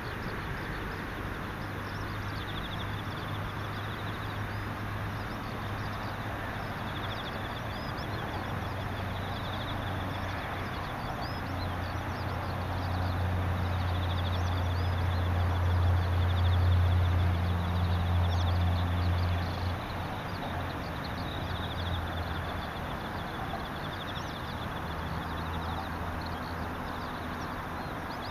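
Insects trilling in repeated pulsing phrases, with scattered bird chirps over a steady outdoor hiss. A low, engine-like hum swells to its loudest in the middle stretch, then fades back.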